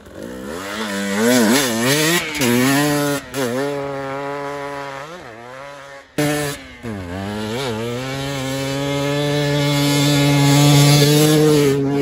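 Enduro dirt bike engine revving hard, its pitch rising and falling with repeated bursts of throttle. After a cut about six seconds in, it climbs steadily through a long full-throttle run and eases off near the end.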